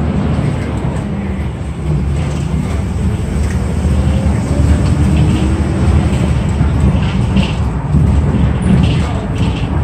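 Inside a moving city bus: steady engine and road rumble as the bus drives, with a faint whine slowly rising in pitch as it picks up speed.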